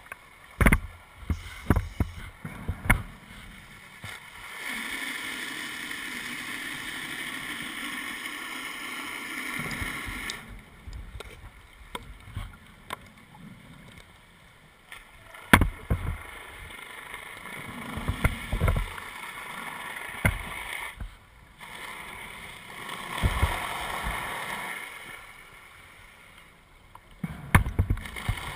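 Scuba diver breathing through a regulator underwater: long, even inhalations alternating with bursts of exhaled bubbles that gurgle and knock past the camera, the bubble bursts coming near the start, twice in the middle and again near the end.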